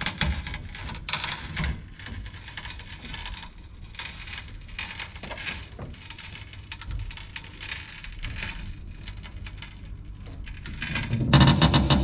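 Hydraulic floor jack being let down under a VW Type 2 pickup's rear, with irregular clicks, creaks and rattles as the truck settles onto its freshly lowered rear suspension. Music with a drum beat comes in near the end.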